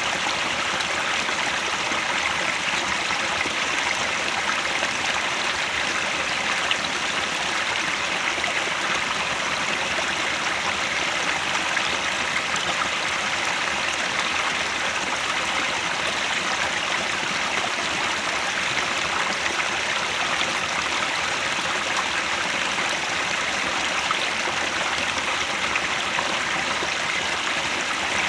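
Headwater stream flowing, a steady, even rush of water with no change in level.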